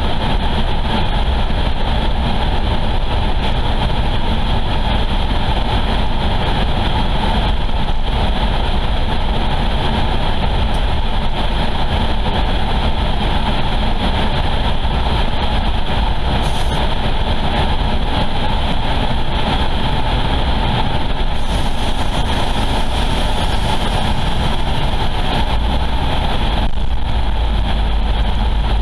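Car driving steadily along a highway: a steady mix of engine and tyre noise.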